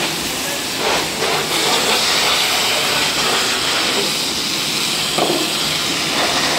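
Car-wash foam lance spraying snow foam onto a car's body and rear window: a steady hiss, with a faint low hum under it.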